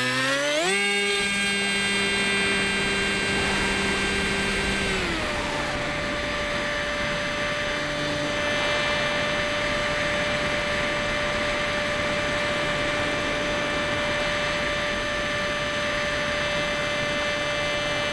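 Electric motor and propeller of a Skywalker FPV plane, heard close up from on board. The whine rises quickly as it is throttled up for takeoff and holds at high power. About five seconds in the pitch eases down a little, then the motor runs at a steady cruise whine with wind hiss.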